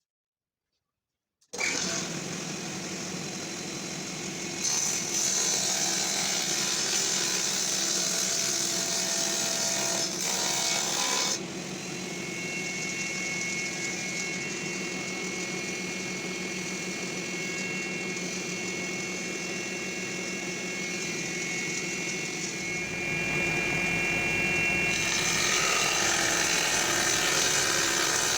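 Table saw running, its motor humming steadily, with two louder, hissier stretches where the blade cuts through wood: one from about five to eleven seconds in, and another from about twenty-three seconds on to the end. The sound starts abruptly about a second and a half in.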